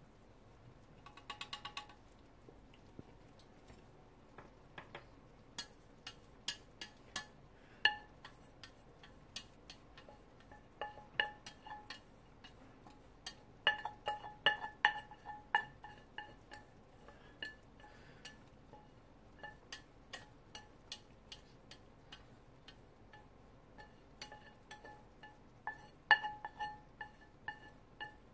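A utensil clinking and scraping against the inside of a stainless steel pot as stir-fried instant noodles are scooped out onto a plate. The clinks are irregular and each leaves the pot ringing briefly, with a quick run of taps about a second in.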